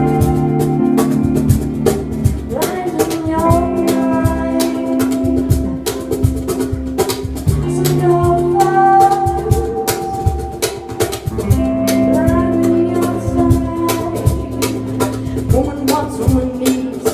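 A live band playing: a drum kit keeps a steady beat under held chords, with a lead melody sliding up and down over them.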